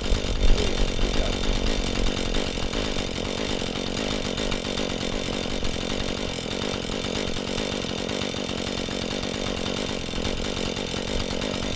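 Husqvarna 435 two-stroke chainsaw running steadily without a break.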